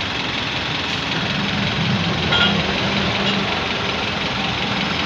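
Honda CR-V engine idling steadily, run to bleed trapped air out of the newly filled cooling system through a funnel on the radiator neck.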